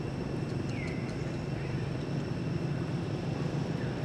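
Steady low rumble, like a distant engine or traffic, with a short falling high-pitched squeak about a second in.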